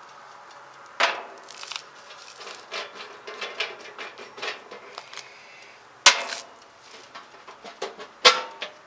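Band saw's upper wheel cover being worked loose and lifted off, with small clicks and rattles and three sharp knocks about 1, 6 and 8 seconds in.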